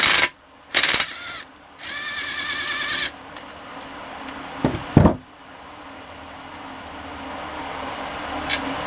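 Electric impact driver spinning a bolt in the engine block's threaded hole to clean the threads: it stops just as the sound opens, gives a short burst about a second in, then runs for about a second with a wavering whine. A couple of heavy thumps follow near the five-second mark.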